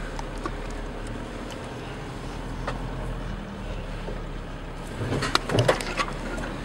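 Pickup truck driving off-road over bush terrain, heard from inside the cab: a steady low engine and road drone, with a burst of knocks and rattles about five seconds in.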